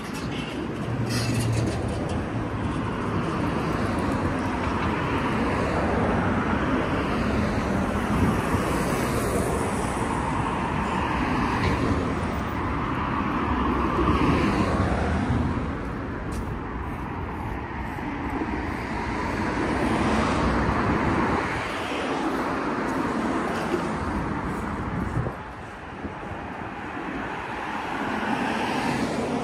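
City road traffic: a steady wash of car and bus noise, swelling as vehicles pass and easing off again, with a brief dip about 25 seconds in.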